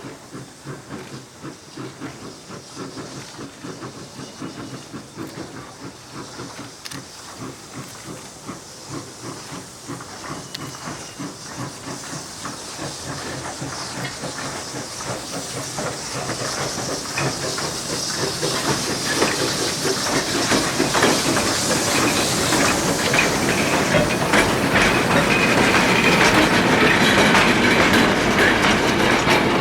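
Narrow-gauge steam locomotive working on the line, with rapid exhaust beats and steam hiss. It grows steadily louder as it approaches.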